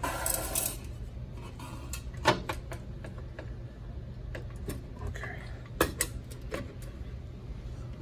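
Sheet-metal chassis and cover plate of an HP 70427A microwave down converter handled on a workbench: a short scrape at the start, then scattered light clicks and clatter, with two sharper metal knocks about two seconds in and just before six seconds.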